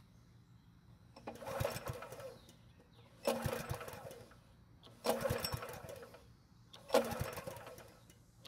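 Recoil starter rope on a Honda small engine pulled four times, about two seconds apart. Each pull turns the engine over in a short whirring rush that dies away within about a second. The engine is cranked with the plug wired into a spark checker, so it doesn't fire.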